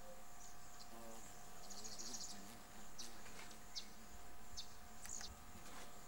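Birds chirping briefly several times, with a short trill about two seconds in, over a steady hum of insects.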